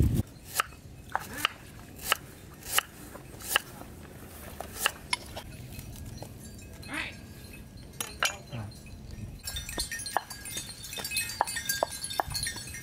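Sharp clinks and taps against a large metal wok as ingredients are put into it, one every half second to second. From about nine and a half seconds a dense, busy patter of tiny high clicks takes over.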